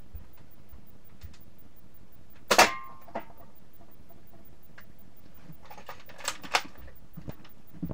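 Nerf Demolisher 2-in-1 toy blaster firing: a sharp snap with a brief ring about two and a half seconds in, a lighter click just after, and two more quick clicks near the end.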